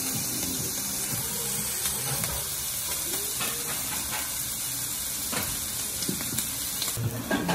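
Ezo abalone, in the shell and sliced, sizzling on a hot steel teppanyaki griddle: a steady hiss with a few faint ticks.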